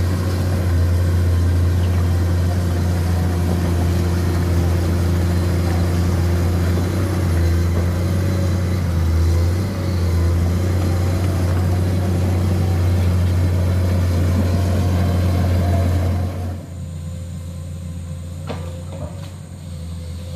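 Komatsu hydraulic excavator's diesel engine running hard as the machine tracks through deep mud: a loud, steady low drone. Near the end the engine sound drops suddenly to a quieter, more distant level, with a couple of sharp metallic knocks.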